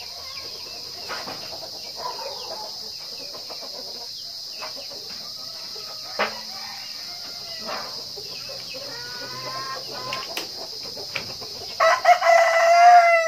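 Chickens clucking and calling in a coop, with a single sharp knock about six seconds in; near the end a rooster crows loudly in one long call.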